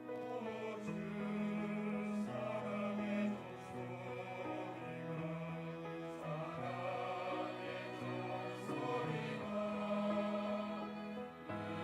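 Church choir singing a slow hymn in harmony, holding long notes that change every second or two, with a lower part moving in steps beneath the upper voices.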